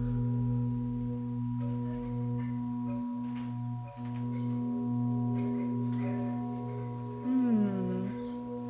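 Sustained meditation drone of several steady tones held together, singing-bowl-like in character. It dips briefly about four seconds in, and near the end a short pitched sound glides downward over it.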